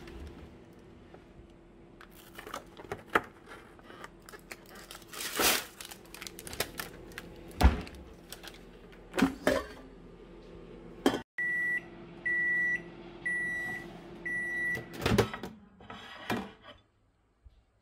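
Microwave oven humming while plastic packaging is handled with crinkles and knocks; after a brief break, the microwave gives four high beeps about a second apart to signal that its heating cycle is done, and then its door is pulled open with a clunk.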